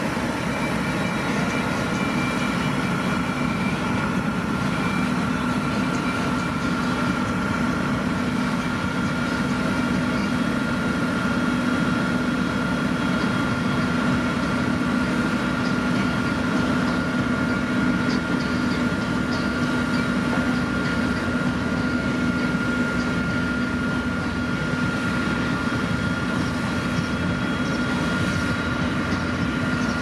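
Motor grader's diesel engine running steadily: a constant low hum with a thin, steady whine above it, unchanging throughout.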